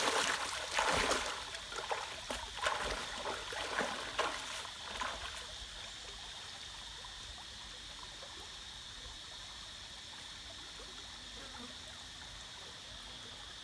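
Splashing footsteps of a person wading through a shallow stream, irregular for the first five seconds or so, then a steady hiss of the flowing stream.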